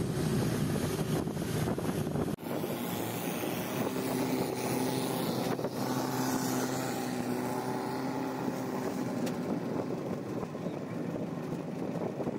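Longtail boat engine running steadily under way, with wind buffeting the microphone. About two seconds in the wind rumble drops away abruptly, leaving the engine's steady note.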